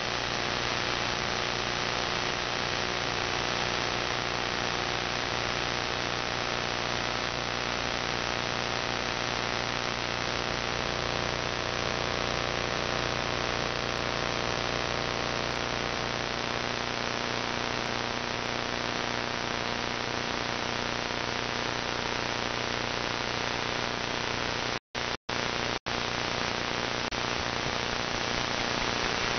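Radio static from an AM receiver on a web SDR, tuned where no station comes through: a steady hiss with faint hum tones under it. The sound cuts out briefly three times a few seconds before the end.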